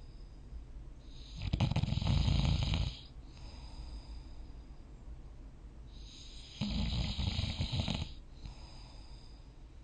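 A sleeping person snoring: two loud, fluttering snores about five seconds apart, each lasting one and a half to two seconds, with softer breathing between them.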